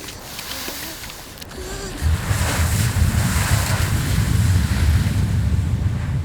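Sea waves and wind rushing. About two seconds in, a heavy low rumble of surging water sets in and holds steady.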